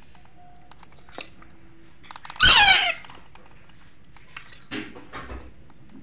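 A hand-reared Alexandrine parakeet chick gives one loud, harsh squawk that falls in pitch, about two seconds in: the begging call of a chick being spoon-fed formula. A few faint clicks come before it.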